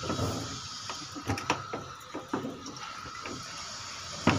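PVC pipe being handled and worked into place, giving irregular light knocks and clicks of plastic, with a louder knock near the end.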